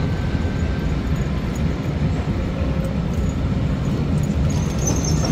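Street ambience on a busy city avenue: a steady low rumble of passing traffic.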